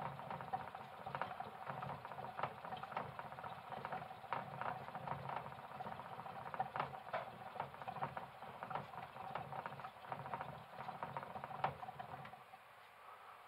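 A dwarf hamster running in a plastic exercise wheel: a fast, uneven rattling patter of paws and spinning wheel over a faint steady whine, stopping about a second before the end.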